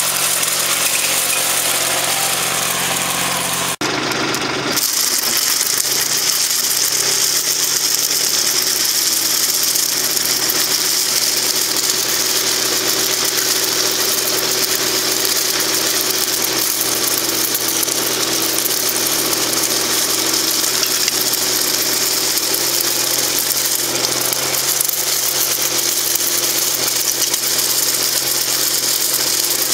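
Tractor engine running steadily while a hydraulic vineyard sweep spins its rubber fingers along the vine row, with a steady high hiss over the engine. The sound breaks briefly about four seconds in and comes back with the hiss stronger.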